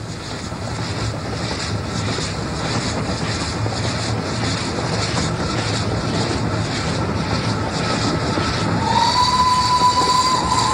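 A steam locomotive running with its train: a steady rush of exhaust and running noise with a faint regular beat. About nine seconds in, its steam whistle starts a long, steady, high note.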